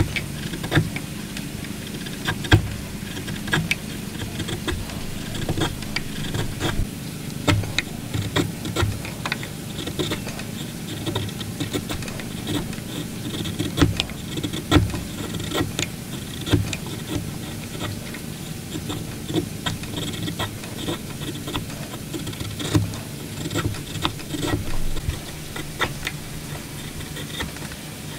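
Steel chisel pushed by hand into a hardwood block, paring out a joint: irregular crisp crunches and clicks as the wood fibres shear and shavings curl off, over a steady low background hum.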